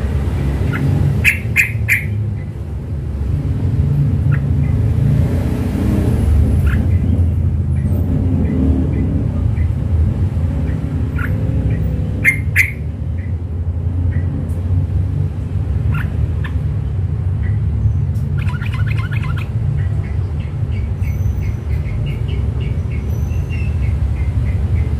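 Yellow-vented bulbul giving short chirps and calls: a loud cluster about a second and a half in, another at about twelve seconds, and a rapid run of repeated notes about three-quarters through. These are the calls of a newly bought, wild-caught bird just beginning to sing. A steady low rumble runs underneath.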